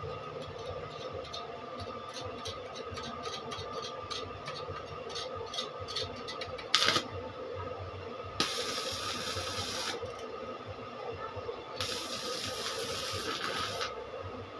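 Stick (arc) welding: the electrode arc crackles in short sputters at first, gives one sharp loud pop about seven seconds in, then burns with a steady frying hiss twice, each for a second and a half or more. A steady hum runs underneath.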